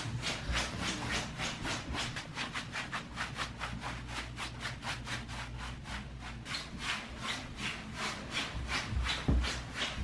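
Nylon snow pants swishing as a child walks and runs, the legs rubbing together in a steady swish-swish of about four to five strokes a second, with a soft thud near the end.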